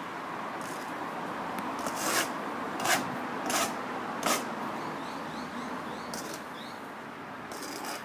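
Bedding sand being screeded flat with a long spirit level dragged across it: four short scraping strokes about two-thirds of a second apart, over steady background noise.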